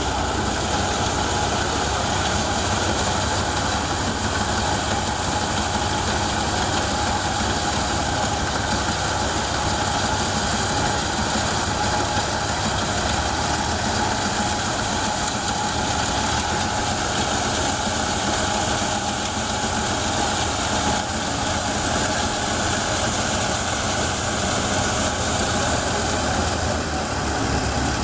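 Massey Ferguson 135 tractor engine running steadily, driving a small threshing machine that is threshing pearl millet. The drum and fan add a steady rushing noise over the engine hum, with no change throughout.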